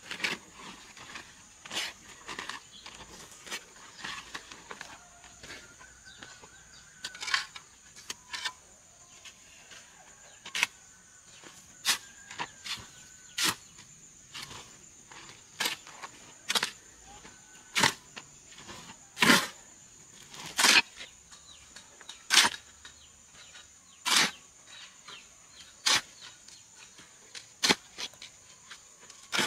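Sharp knocks of a tool striking wood, coming irregularly about once every one to two seconds, some much louder than others, over a steady high-pitched drone.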